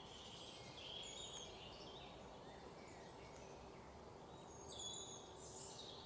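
Faint bird chirps over near silence: a few short high calls about a second in and again near the end.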